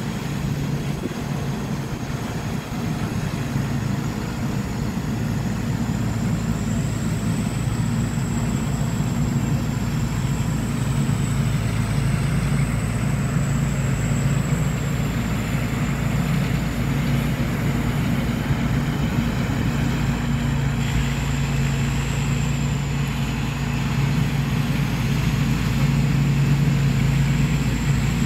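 Rice combine harvester's engine running steadily as it harvests, a continuous low hum that grows a little louder toward the end, with a thin high whine wavering above it.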